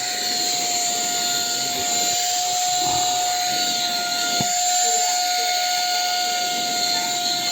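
Tiazhan handheld vacuum/air duster motor running steadily: a constant rush of air with a steady high-pitched whine.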